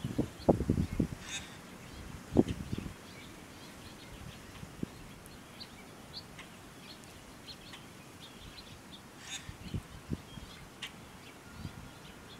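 Outdoor spring ambience: small birds chirping faintly and sporadically, broken by three short clusters of low thumps, near the start, about two and a half seconds in, and around ten seconds.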